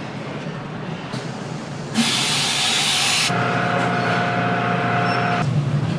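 About two seconds in, a sudden loud hiss like spray or steam starts over steady background noise and lasts about a second. It gives way to a steady hum with a thin whistling tone that stops about a second before the end.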